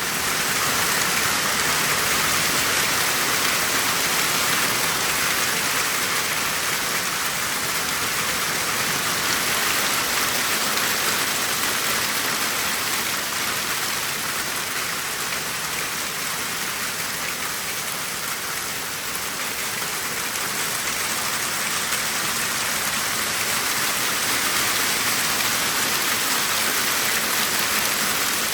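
Heavy rain mixed with hail pelting down, a dense steady hiss that eases a little about two-thirds of the way through and then builds again.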